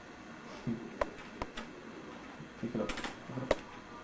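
A cat's paws and claws tapping and skittering on a hardwood floor as it pounces after a toy: scattered sharp clicks and a few soft thumps, bunched about a second in and again near the end.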